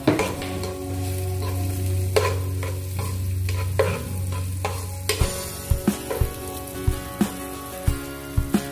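Chopped garlic and onion sizzling in margarine in a pot while a metal spoon stirs and scrapes them. From about five seconds in, the spoon knocks against the pot about twice a second.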